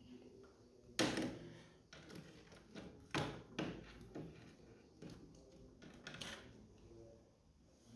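Hands unplugging and handling a scooter's voltage regulator wiring: plastic multi-pin connectors and cables clicking and knocking. Several sharp clicks, the loudest about a second in and another just after three seconds.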